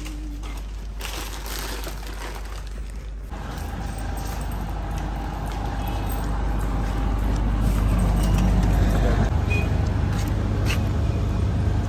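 City street noise: a steady low rumble of road traffic. It sets in abruptly about three seconds in, replacing quieter indoor sound, and grows louder toward the end.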